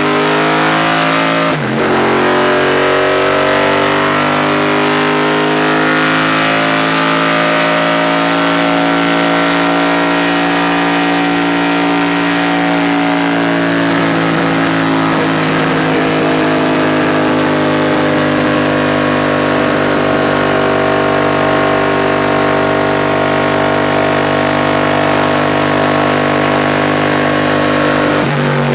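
Forged roller small-block Chevrolet V8 of a 1985 IMSA Trans-Am Buick Somerset race car, heard from inside the cockpit, running hard at high revs on track. The revs dip sharply for a moment about a second and a half in, then hold high and climb slowly, dropping away near the end.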